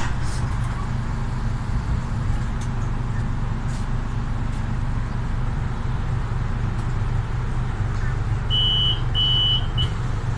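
Steady low drone of a Solaris Urbino 18 IV articulated bus's Euro 6 diesel engine, heard from inside the passenger cabin. Near the end an electronic beeper sounds three times, two longer beeps and a short one.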